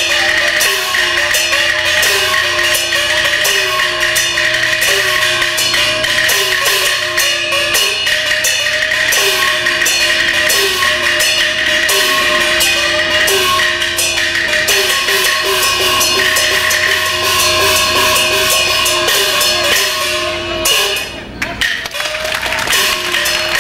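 Beijing opera percussion ensemble playing fast accompaniment: a rapid stream of clapper and drum strokes, with repeated gong strokes whose ringing pitch slides.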